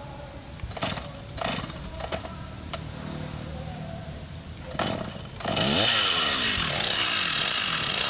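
Chainsaw engine idling, with a few sharp knocks. About five and a half seconds in it is throttled up suddenly and keeps running loud at high revs.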